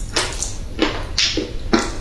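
Close-miked crunching of dry baked clay, a quick run of short crunches at about three a second.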